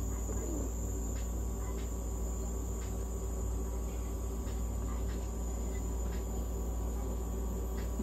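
Nebulizer and oxygen equipment running for a cat's inhalation therapy: a steady low hum with a constant high-pitched whine above it and faint, irregular ticks.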